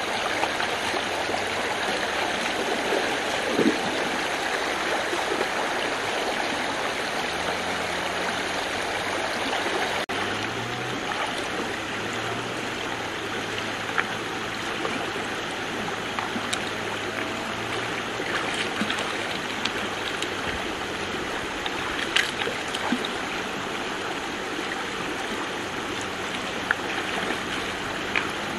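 Shallow river water flowing and rippling steadily over stones and a stone weir, with a few brief sharp knocks or splashes here and there.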